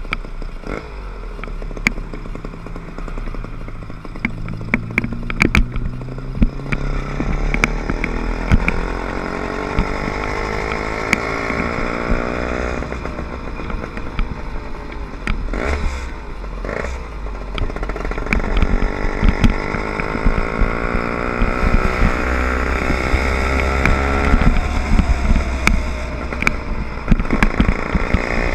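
Small 60/80cc motor bike engine pulling away and accelerating, its pitch climbing over the first several seconds, easing off about halfway, then running steadily at cruising speed. Frequent sharp rattles and clicks sound over the engine.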